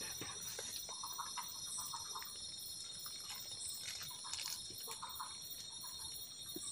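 Night forest chorus: frogs giving short chirping calls in little runs every second or so over a steady high insect drone, with a few faint clicks.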